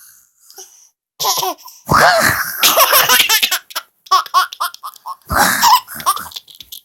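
One-year-old baby laughing hard. The bursts of laughter start about a second in, with a run of quick short laughs in the middle and a last burst near the end.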